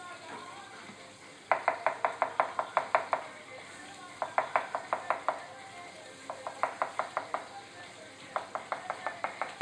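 Kitchen knife slicing mushrooms on a plastic cutting board: four quick runs of rapid knife taps, about seven a second, with short pauses between them.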